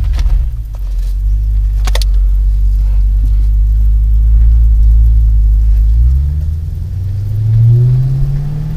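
A car driven on the road, heard from inside the cabin: a loud, low, steady engine and road rumble. There are a couple of sharp clicks in the first two seconds, and from about six seconds in the engine note rises as the car speeds up.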